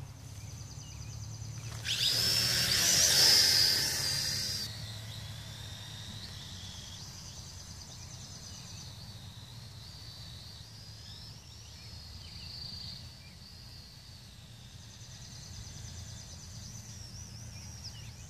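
Mould King Super S 33041A toy quadcopter's motors spin up loudly about two seconds in as it lifts off close by. After that they settle into a thinner high whine that keeps wavering in pitch as the drone flies about.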